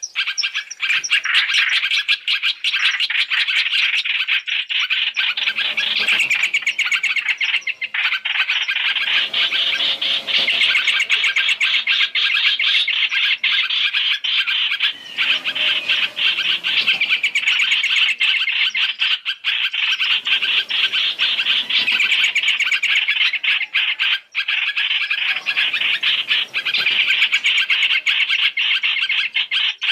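Flock of hoành hoạch (trao trảo) birds chattering and chirping continuously in dense, high-pitched calls, a recorded lure call used to draw the birds to a trap.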